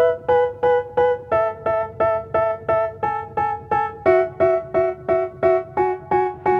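Background music: a keyboard repeating short, evenly spaced chords at about three a second. The chord changes about a second in and again about four seconds in.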